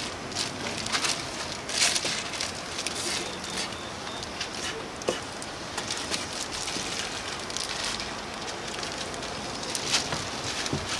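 A steady hissing noise with scattered sharp clicks and knocks.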